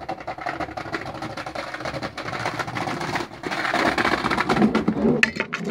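Skateboard wheels rolling over brick paving: a continuous rattling rumble that grows louder as the board approaches, with a few sharp knocks near the end.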